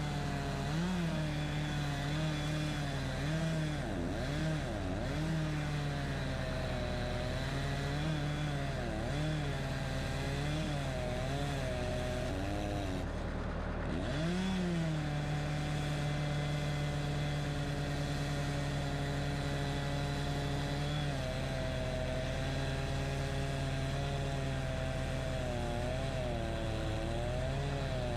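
Wood-Mizer LX25 band sawmill's engine running under cutting load, its speed repeatedly dipping and recovering as the band blade works through cedar. A little past halfway it holds a steady, higher speed for several seconds, then wavers again near the end.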